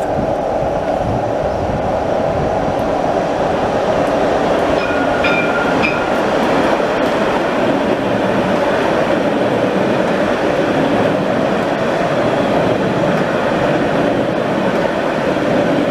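Jerusalem Light Rail Alstom Citadis trams running past on the track: a steady rolling rumble from the wheels and running gear that grows slightly louder as they come close. There is a brief high-pitched tone about five seconds in.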